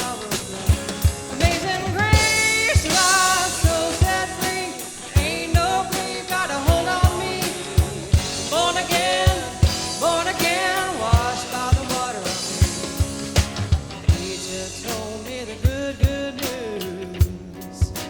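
Rock-style band music with a singer and a drum kit keeping a regular beat.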